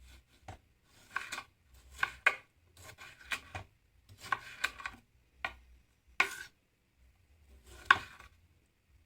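Knife chopping food on a cutting board: irregular sharp knocks, sometimes two or three in quick succession, with short pauses between.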